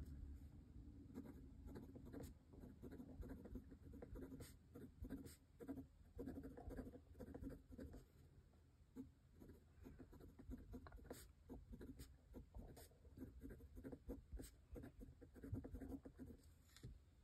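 Faint scratching of a Pilot Prera fountain pen's fine steel nib writing on notebook paper, in short irregular strokes with small ticks as the nib touches down and lifts. The fine nib gives a little feedback on the paper.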